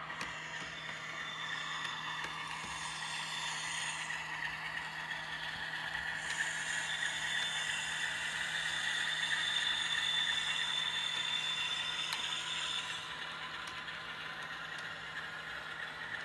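Model railway container train hauled by a model Class 47 diesel locomotive running along the track: a steady whirring with a light rattle and clatter of the wagons' wheels, growing louder as the train passes close at about ten seconds, then easing off.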